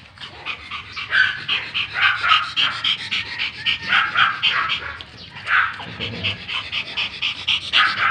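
Pomeranian panting hard and fast, about five pants a second, during a mating.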